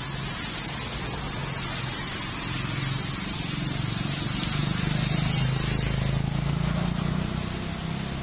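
A motor vehicle's engine running and growing louder toward the middle, over a steady hiss typical of rain and wet street traffic.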